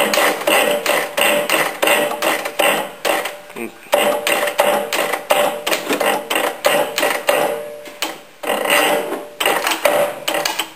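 Rapid, irregular mechanical clicking and clanking, several knocks a second, with a faint steady whine in the middle.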